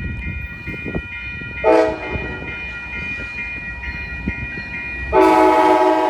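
Amtrak locomotive horn sounding a short chord blast about two seconds in, then a long, louder blast starting near the end, over the steady repeated ding of a grade-crossing bell and the low rumble of the approaching train.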